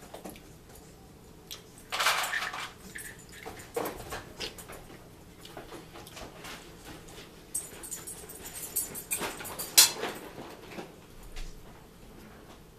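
Close-up table and eating sounds from a person at a meal: a short rustle about two seconds in, scattered small clicks, then a longer rustle with a sharp click near the end.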